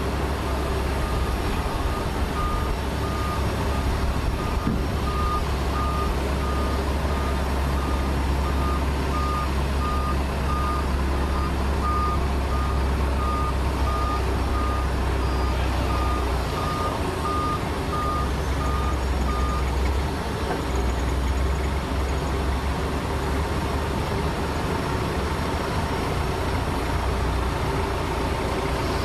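Aircraft tow tractor's reversing alarm beeping steadily at one pitch while the tug backs up with a helicopter in tow, over the low drone of its engine; the beeping stops about two-thirds of the way through and the engine keeps running.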